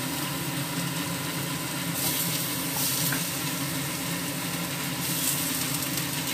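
Chopped onions, green chillies and garlic sizzling in hot oil in a frying pan as tomato pieces are dropped in. The sizzle swells louder about two seconds in and again about five seconds in, over a steady low hum.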